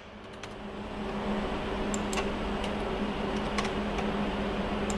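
A few scattered computer keyboard keystrokes as numbers are typed into a field, over a steady background hum that swells during the first second.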